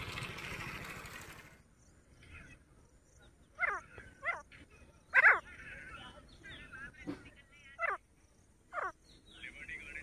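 A run of five short animal calls, each sliding steeply down in pitch, the loudest about five seconds in, with faint chirping twitters between them. A steady rushing noise cuts off about a second and a half in.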